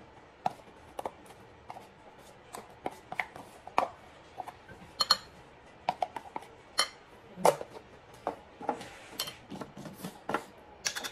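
Irregular clinks and taps of a metal spoon and containers against a ceramic mixing bowl, about one to three a second, with a glass jar being handled near the end.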